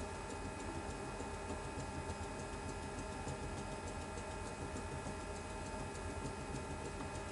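Endodontic motor driving a martensitic NiTi rotary file in reciprocating motion to bypass a broken file in a curved canal: a steady whine with a fast, regular ticking.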